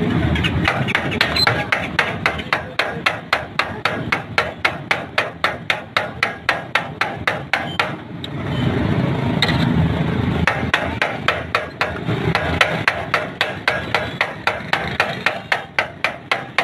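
Metal spatulas chopping and turning chicken on a hot steel griddle: a fast, regular metal-on-metal clatter of about three to four strikes a second, stopping briefly about halfway through and then starting again.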